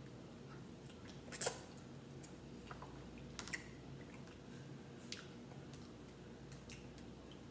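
Cooked crab leg shells being cracked and picked apart by hand: a few sharp, scattered snaps and crackles, the loudest about one and a half seconds in.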